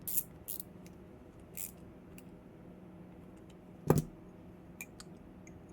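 Balisong (butterfly knife) swung by hand to test its glue-built-up pivot bushing: a few light metallic clicks of the handles and pivot, then one sharp clack about four seconds in.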